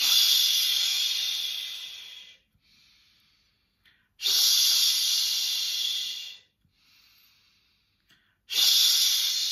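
A person breathing out three long 'shh' sounds in a breathing exercise, each lasting about two seconds and fading as the breath runs out. Quieter in-breaths through the nose come between them.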